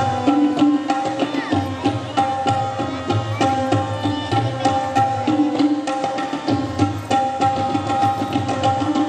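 Tabla played in a quick, continuous rhythm: ringing strokes on the small right-hand drum over deep bass strokes from the left-hand drum, with a steady sustained drone underneath.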